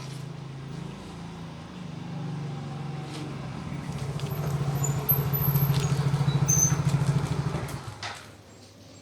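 A vehicle engine running steadily with a low, pulsing hum that grows louder and then fades away about eight seconds in, as a vehicle passing by would. A few faint clicks sound over it.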